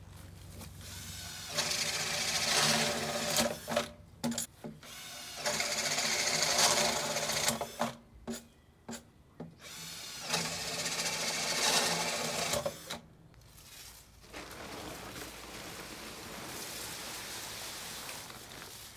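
Cordless drill running in three bursts of a few seconds each, its bit boring into a large pot. A few short knocks fall between the bursts, and a quieter, even rustling follows in the last few seconds.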